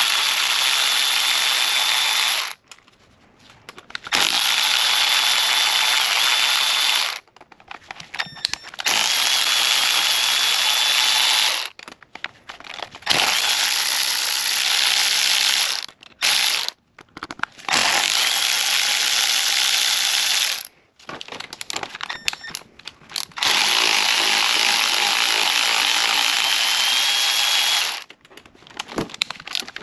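Battery-powered electric ratchet running in about six spurts of roughly three seconds each, its motor whining steadily under the ratcheting noise as it spins fasteners out.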